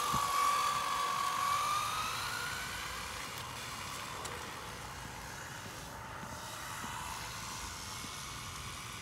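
ARRMA Infraction v2 RC car's brushless motor and speed-pinion gearing whining at high speed. The high steady whine fades after about two seconds as the car pulls away into the distance.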